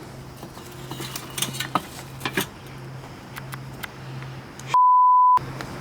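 A few light metallic clinks over a steady low hum, then near the end a loud, steady, high-pitched censor bleep lasting about half a second, with all other sound cut out under it.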